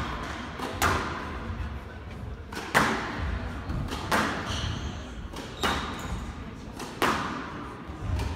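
Squash ball being hit back and forth in a rally: sharp cracks of racket strikes and the ball hitting the walls, a hit every second or so, each with a short echo.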